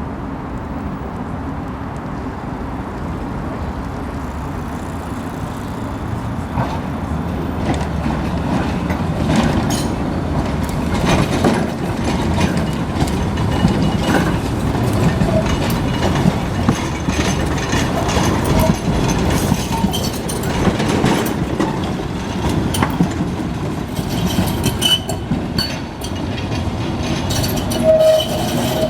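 Moscow tram rolling slowly on its rails. A steady low rumble gives way to more and more clicks and knocks from the wheels, with a short squeal near the end.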